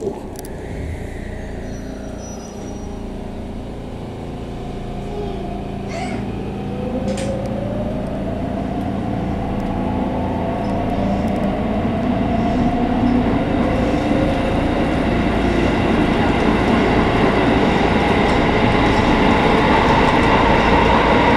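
JR West 207 series electric train accelerating away from a stop, heard from inside the front car. The traction motors give a whine of several tones that rises steadily in pitch, over wheel and running noise that grows louder as the train gathers speed. There are a couple of sharp clicks about six seconds in.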